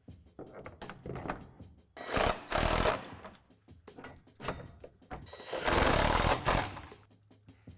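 Cordless drill driving fasteners through the plastic wall panels, run in short bursts: two quick runs about two seconds in and a longer run a little past halfway, with light clicks of hardware between them.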